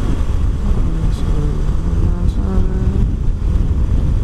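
Wind rushing and buffeting on the microphone over a Honda XR250 Tornado's single-cylinder engine cruising at highway speed, about 85 to 90 km/h. A steadier engine note comes through for a second or two in the middle.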